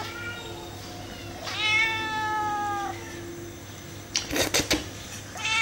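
House cat meowing: one long drawn-out meow about a second and a half in, and another beginning near the end. A quick cluster of sharp knocks comes in between.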